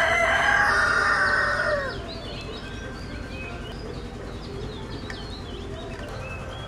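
A rooster crows once, loud and lasting about two seconds, its call bending down in pitch at the end. Small birds then chirp here and there.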